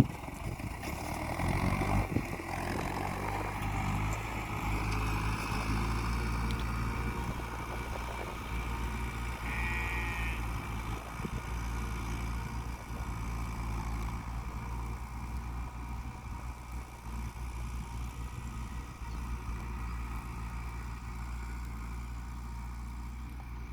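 New Holland TT75 tractor's diesel engine running steadily while pulling a plough, swelling louder about two seconds in.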